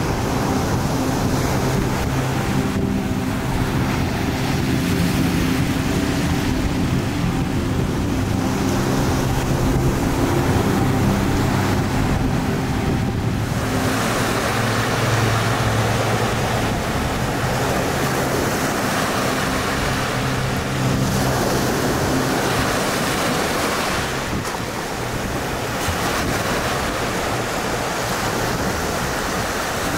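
Small sea waves washing over flat rocks and wet sand, with a steady engine hum through the first half that fades out. From about halfway the wash of the water comes up louder.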